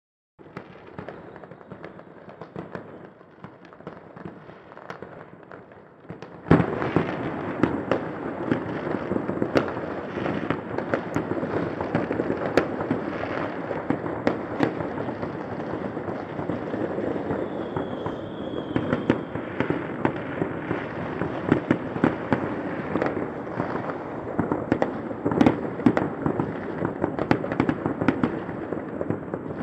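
Many fireworks going off at once across a city: a continuous rattle of distant pops and bangs that gets louder about six seconds in.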